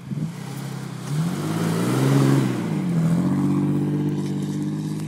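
Toyota FJ Cruiser's 4.0-litre V6 engine revving up about a second and a half in, easing back a second later, then running steadily.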